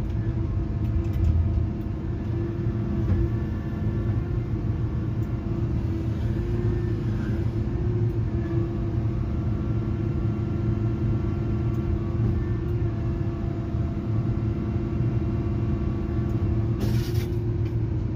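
Tigercat 822 feller buncher running steadily, its engine and hydraulics heard from inside the cab as an even hum. A brief hiss comes about a second before the end.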